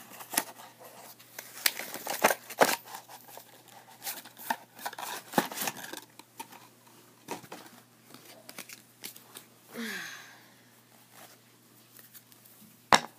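A cardboard trading-card hanger box and the card wrapper inside being torn open by hand: a quick run of sharp rips, crinkles and clicks, thinning out after about six seconds, with one sharp snap near the end.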